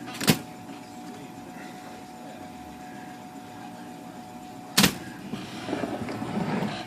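Brother electric typewriter's motor running with a steady hum, broken by two sharp mechanical clacks from the typing mechanism, one just after the start and one nearly five seconds in.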